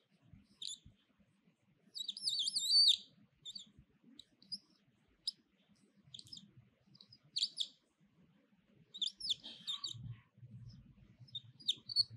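Birds chirping: short high chirps and quick curling trills scattered through, the busiest about two seconds in and again about nine seconds in.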